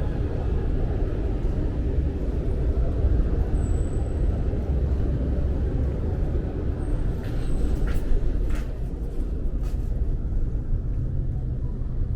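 Steady low rumble of road traffic, with a brief faint high squeal and a few sharp clicks about two-thirds of the way through.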